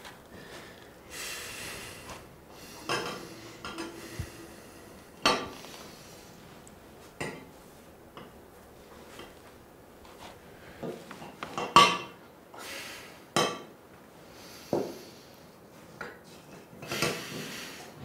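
Dishes and cutlery clinking and knocking irregularly, about once a second, with a few short hissy scrapes in between.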